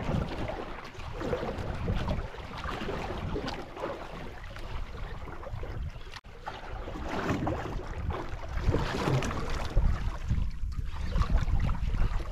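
Wind buffeting the microphone over water sloshing against the hull of a small outrigger boat at sea. The rumble comes in uneven gusts and is heaviest near the start and end, with a brief break about six seconds in.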